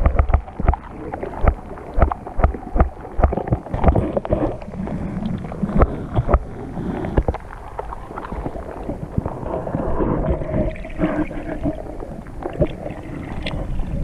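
Water heard through a camera held under the surface: muffled gurgling and sloshing with many short, irregular clicks and knocks.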